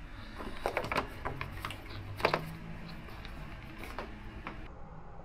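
Scattered light clicks and taps of small parts and tools being handled during motorcycle reassembly. A cluster of clicks comes about a second in, and a sharper click a little over two seconds in.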